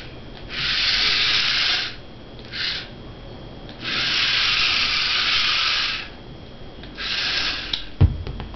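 Small DC gear motors of a radio-controlled four-wheel car whirring in four separate bursts as the car is driven in short spurts, the longest about two seconds. A single sharp thump follows about eight seconds in.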